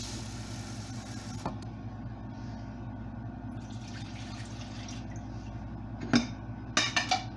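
Tap water running into a glass measuring cup, shut off about a second and a half in, then water poured from the cup into the pressure cooker's pot. Near the end, a few sharp knocks and clinks as a ceramic bowl is handled.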